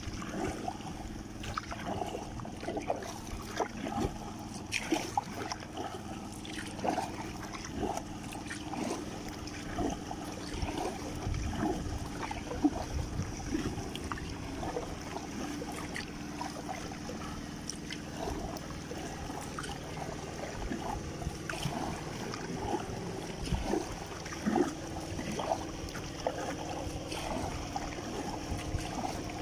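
Water lapping and trickling around a paddled kayak, with small irregular splashes and drips from the paddle.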